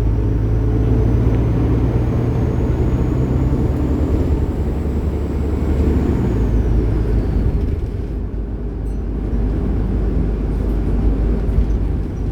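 Bus engine running under way, a steady low drone. A thin high whine rises slowly, then glides down and fades about seven seconds in.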